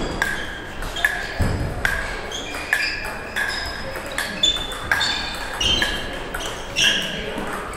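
Celluloid-type table tennis ball knocking off rackets and bouncing on the table during rallies: a quick, irregular string of sharp pings about every half second, echoing slightly in a large hall.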